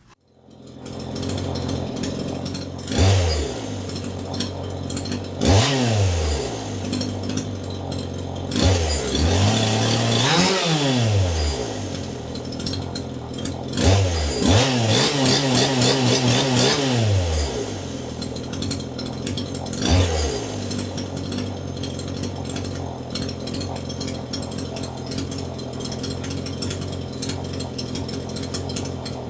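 Gasoline two-stroke chainsaw idling and repeatedly revved, the pitch rising and falling each time. There are about six throttle bursts, the longest held for about three seconds past the middle, then it settles back to a steady idle.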